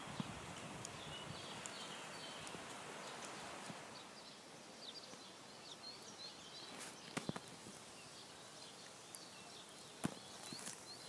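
Footsteps on a gravelly dirt track, with a few sharp crunches in the second half, over a steady outdoor hiss with faint high chirps.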